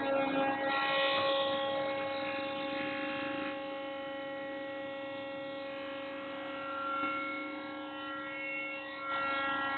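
CNC tube bending machine running with a steady, even-pitched electric whine, with some extra rattle in the first second or so.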